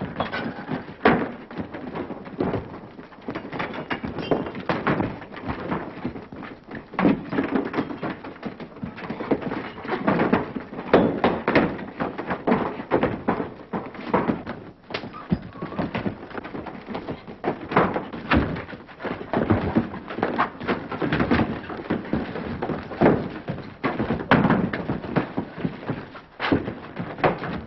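A fistfight: a long run of punches and heavy thuds landing one after another.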